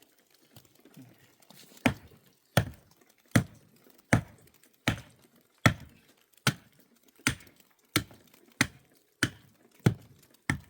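Steady series of heavy blows, about thirteen, one every three-quarters of a second or so, beginning about two seconds in after a few fainter knocks: a tool striking something solid again and again.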